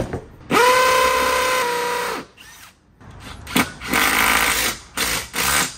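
Cordless drill working into a stucco wall to fix a mounting bracket, its motor whining steadily for about a second and a half. After a pause come a shorter run and two quick bursts near the end.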